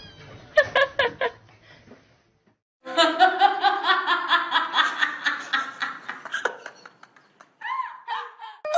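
Person laughing hard in rapid repeated bursts, about five a second, for several seconds. A few short sharp sounds come before it, and a few short high calls that rise and fall follow near the end.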